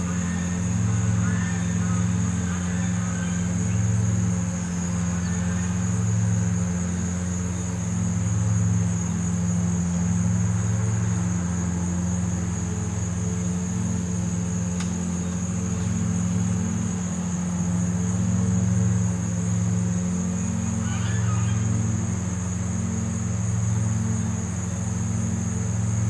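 A steady low hum from an engine or machinery, swelling slightly every couple of seconds, under a continuous high-pitched insect drone. A few faint bird chirps.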